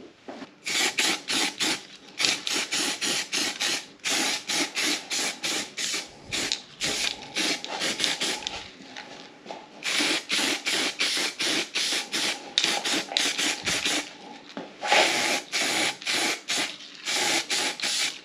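Aerosol can of weld-through primer spraying onto bare steel in rapid short hissing bursts, about four a second, with a few brief pauses.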